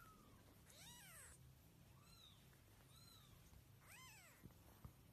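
Tiny kitten mewing faintly four times: short, high mews that each rise and fall in pitch. A soft tap near the end.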